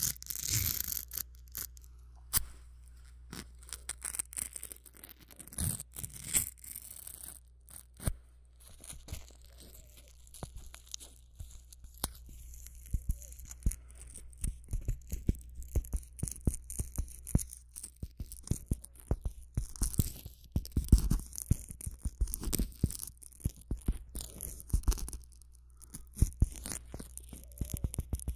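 Small objects handled close to a binaural (3D) microphone: an irregular run of quick clicks, taps and scratchy scrapes, growing denser after the first few seconds.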